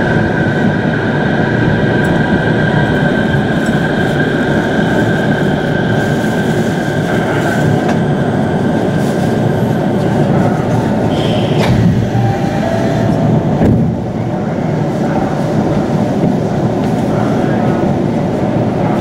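Chiba Urban Monorail Type 0 suspended monorail car running and slowing into a station, heard from inside the car. A steady high whine fades out partway through, and there is a clunk and a small drop in noise about 14 seconds in as the car comes to a halt at the platform.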